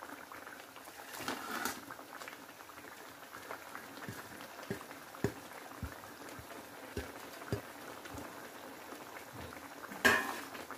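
Thick tomato masala gravy boiling in an aluminium kadai, with irregular small pops of bursting bubbles. A brief louder scrape near the end.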